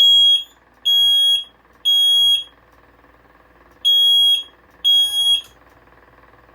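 Piezo sounder on a duct smoke detector's remote test key switch beeping a high, steady tone, sounding because the detector is in alarm. It beeps in the temporal-three pattern: three half-second beeps, a pause of about a second and a half, then two more before it stops.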